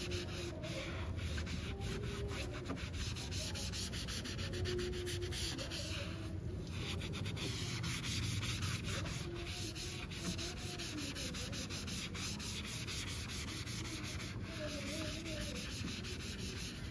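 Foam applicator pad rubbing back and forth in quick, continuous strokes over the textured black plastic of a car's rear bumper, working in a trim-restorer dressing.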